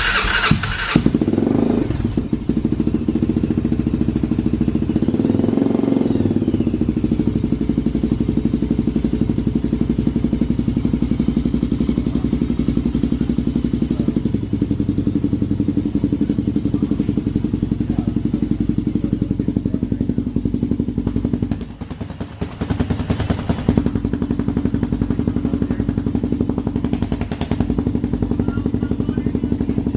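Honda TRX400EX's air-cooled single-cylinder four-stroke engine running on its first start after a top-end rebuild, idling steadily. It revs up and back down once about five seconds in, and around twenty-two seconds in it briefly drops off before picking back up.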